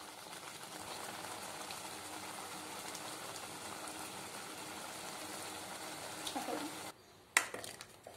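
Thick chana dal mixture bubbling and crackling steadily as it simmers down in a pan. Near the end it cuts off and a steel spoon clicks a few times against a steel pot.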